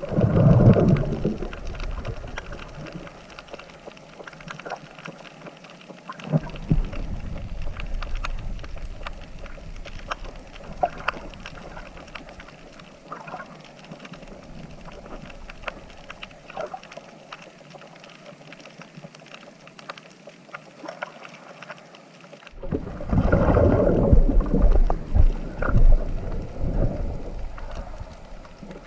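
Water sloshing and rumbling close to the microphone, with scattered clicks and knocks; the rumbling surges at the start, from about six to ten seconds in, and again from about 22 to 27 seconds in.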